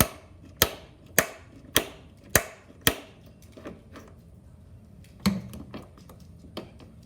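A mechanism clicking sharply six times in an even rhythm, a little under two clicks a second, then a single heavier knock a couple of seconds later.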